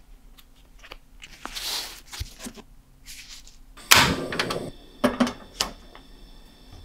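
Banana leaf rustling as it is folded around sticky rice, then a gas stove burner lighting with a sudden whoosh about four seconds in, followed by a few sharp metallic clinks from the wire grill rack over the burner.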